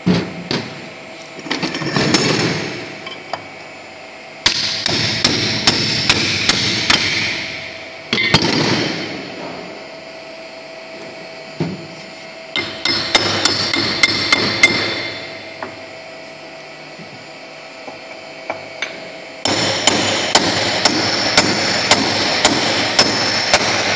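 Hammer blows on a steel punch driving a chain sprocket off its shaft, in three runs of quick strikes about three a second with metallic ringing, and a few single knocks between them.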